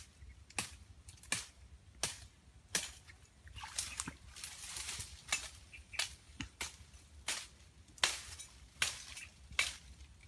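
Dry twigs and branches snapping by hand in a series of sharp, irregular cracks, about one or two a second, with leaves rustling, loudest a little before the middle as brush is pulled aside.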